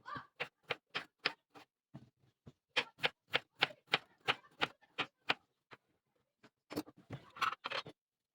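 A series of sharp, evenly spaced knocks, about three a second, with a short gap about two seconds in, that stop abruptly near the end.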